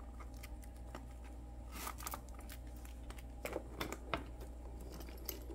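Faint rustling and scattered small clicks of a wallet and handbag being handled, over a low steady hum.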